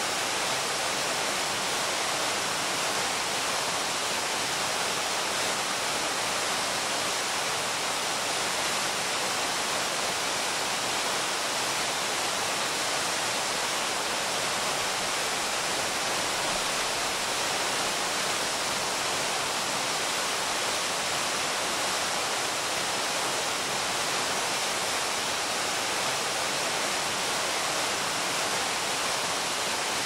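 Ono Falls, a tall waterfall, pouring steadily: a constant, even rush of falling water.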